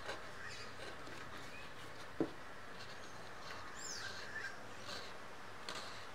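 Faint scratching of a hand carving tool cutting lines into the hard shell of a dried calabash gourd, with a single sharp knock about two seconds in. A brief bird chirp sounds near the middle.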